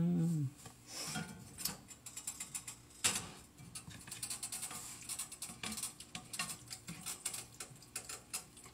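A cooking utensil clicking and scraping against a skillet as food is stirred: a quick, uneven run of small clicks, with one sharper clack about three seconds in.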